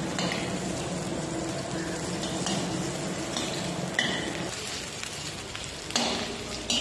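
Chicken pieces frying in a wok with a steady sizzle, while a metal spatula scrapes and clinks against the pan several times. The sharpest clinks come about four seconds in and again around six seconds.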